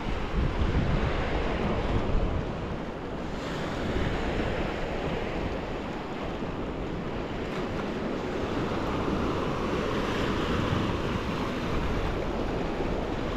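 Sea waves washing onto the beach, with wind buffeting the microphone in gusts.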